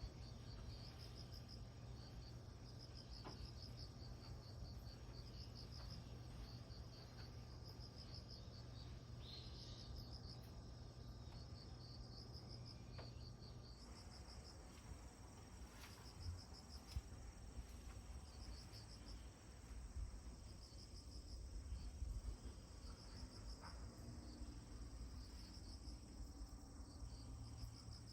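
Faint crickets chirping, in short repeated trains of rapid pulses, over a low background rumble, with a couple of brief clicks.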